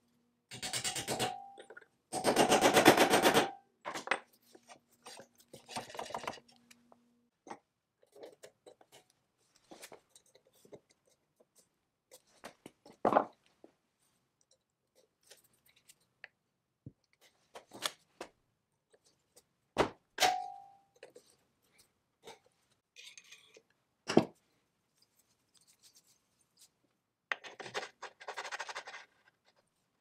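Metal engine parts being handled and fitted by hand: two bursts of rapid rattling clicks in the first few seconds and another near the end, with a few sharp metal taps in between, one of which rings briefly.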